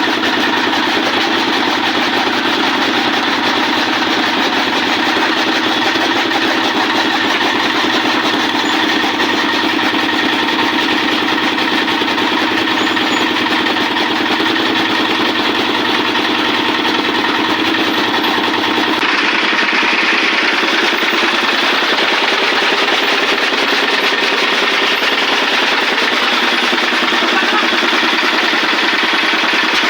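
A motor or engine running steadily with a continuous hum. About two-thirds of the way through, its sound shifts suddenly and loses its deepest part.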